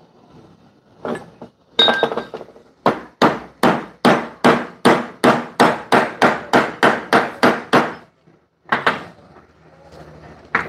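Hammer blows on steel at a bench vise, driving a newly made brass bushing into a bus door hinge: a steady run of about fourteen sharp metallic strikes, roughly two and a half a second, with a few separate knocks and a ringing clink before it and two more knocks near the end.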